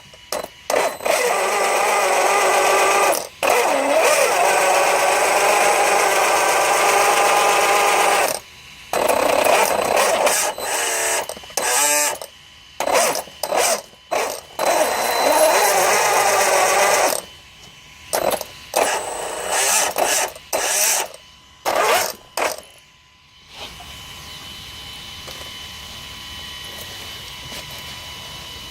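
Brushless Castle 2028 motor in a 1/5-scale Losi DBXL-E buggy spinning up under throttle with a whining, grinding drivetrain noise whose pitch rises and falls. It runs continuously for about eight seconds, then in short on-off throttle blips that stop about 23 seconds in. The noise is the sign of failing motor bearings.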